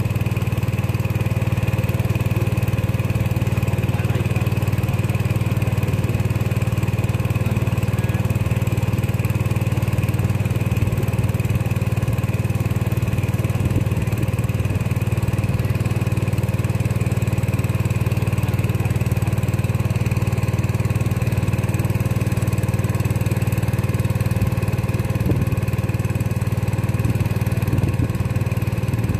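A small boat's motor running steadily at an even speed, a constant low drone with no change in revs.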